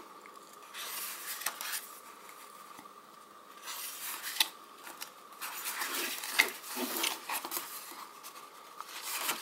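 Pages of a photobook turned by hand: paper rustling and sliding in several short bursts.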